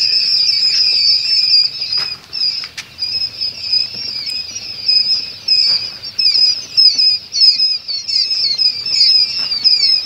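A large brood of quail chicks peeping in chorus, many high-pitched cheeps overlapping without a break. A couple of short sharp clicks sound about two to three seconds in.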